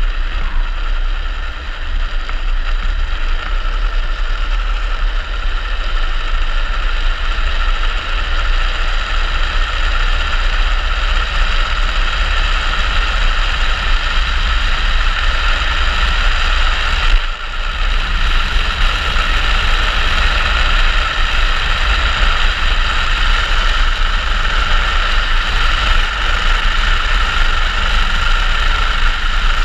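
Wind rushing over a helmet-mounted camera microphone, with the wheels of an engineless speed trike running on the asphalt during a fast downhill descent: a steady, loud rushing drone with a low rumble and a brief dip about seventeen seconds in.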